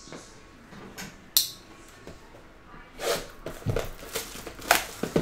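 Plastic shrink wrap being torn and peeled off a sealed trading-card box, crinkling in a flurry of sharp bursts in the second half, after a single sharp click about a second and a half in.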